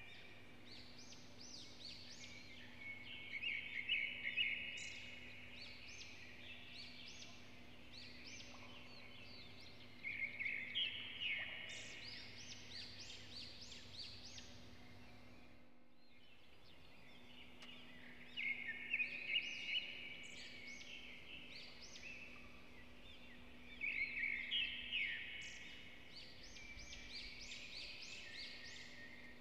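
Birds chirping, with four louder bursts of quick, high calls and quieter chirping between them, over a faint steady hum. The sound cuts out briefly about halfway through.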